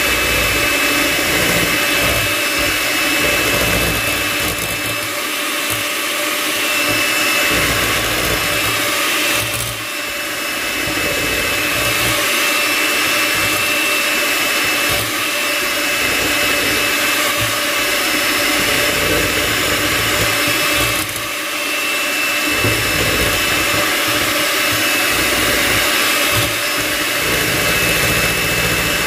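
Electric mixer running steadily with a high whine, its beaters whipping cream in a bowl; the sound dips briefly twice, about ten and twenty-one seconds in.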